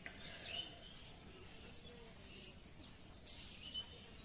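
Small birds chirping: short, high chirps and quick sweeping calls repeated every half second or so over faint outdoor background noise.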